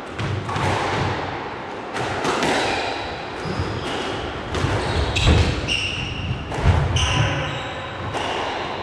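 A squash rally: the ball is struck by rackets and hits the court walls about once a second, with short squeaks of court shoes on the floor in between.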